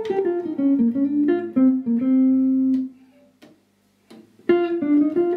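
1963 Gibson ES-330 hollow-body electric guitar played with a clean tone: a single-note line of quick descending phrases ending on a held note. About three seconds in the playing stops, and a new phrase starts about a second and a half later.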